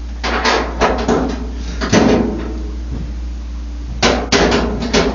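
A series of knocks and clatters from hard parts and tools being handled and set down, in a cluster near the start, one sharp knock about two seconds in, and another cluster near the end, over a steady low hum.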